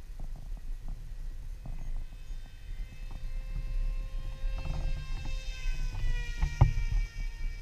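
Electric brushless motor and propeller of an RC flying wing whining in flight. Its pitch climbs as the plane comes in, then drops sharply as it passes overhead about six seconds in. Wind buffets the microphone throughout, with a couple of sharp knocks near the end.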